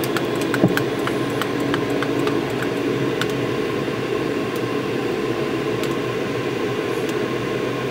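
A stir stick clicking and scraping against the inside of a glass Pyrex measuring cup as thick liquid plastisol with glitter is stirred: many small irregular ticks over a steady background noise.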